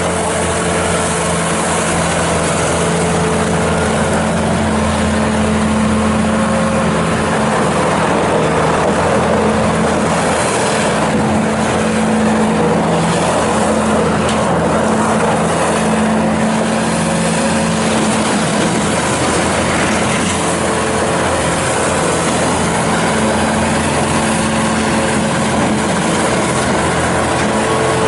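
Bobcat S650 skid steer loader's Kubota V3307 four-cylinder turbo diesel running steadily at working speed as the loader is driven and operated, with a noisier, rougher stretch in the middle.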